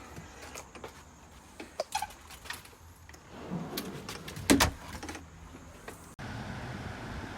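Scattered small clicks and knocks and one loud thump about four and a half seconds in, typical of handling things at a car, then an abrupt change to the steady rumble and hiss of a car driving.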